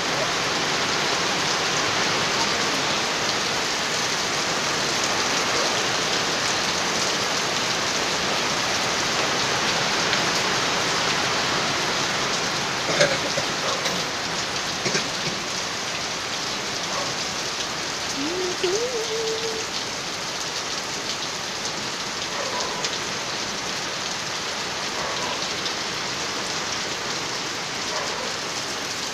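Heavy rain falling steadily on a concrete street and running off a roof edge, an even hiss. A single sharp knock stands out about halfway through.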